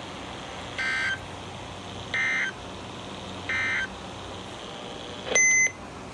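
EAS/SAME end-of-message data bursts: three short buzzy digital bursts, about 1.3 s apart, closing the severe thunderstorm warning broadcast. Near the end comes a single louder, shorter beep.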